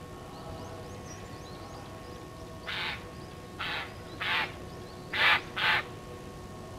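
A crow cawing five times a few seconds in, the last two caws close together, over a faint steady hum.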